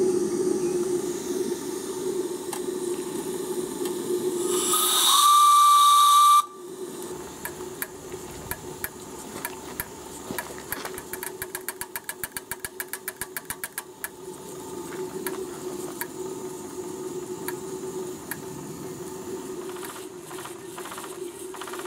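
Steam whistle on a model live-steam marine plant blown once for nearly two seconds, a loud high whistle that cuts off suddenly, over the steady hiss and hum of the running steam plant. Later comes a few seconds of rapid even ticking, about seven beats a second.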